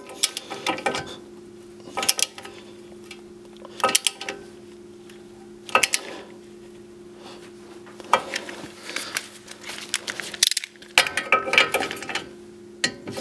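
Ratchet of a click-type torque wrench clicking in short runs as it tightens a tie rod end castle nut, over a steady low hum.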